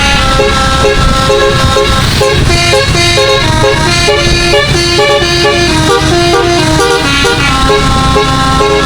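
Bus's 12-note Basuri-style telolet musical air horn playing a fast melody of short notes stepping up and down in pitch, over a low rumble.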